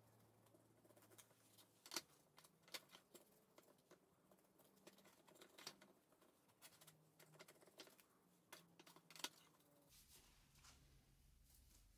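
Faint, scattered taps and clicks of a brush working oil onto small oak balustrade pieces and dipping into a bowl of oil, over a quiet low hum.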